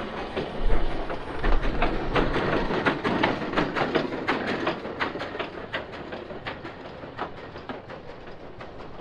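Snowdon Mountain Railway steam locomotive No. 6 and its coach passing close by on the rack line: a quick, irregular run of knocks and clanks, loudest in the first few seconds and fading as the train goes by.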